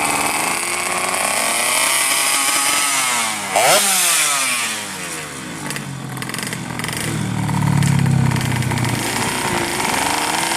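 Yamaha Alfa's two-stroke engine, bored to 116 cc and fed by a 35 mm carburettor, revving: its pitch climbs to a sharp peak about four seconds in, then falls away to a low run before picking up again near the end.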